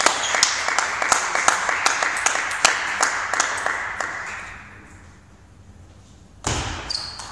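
Spectators applauding at the end of a table tennis rally, the clapping fading out about four and a half seconds in. Near the end a sudden loud burst of noise with a low thud.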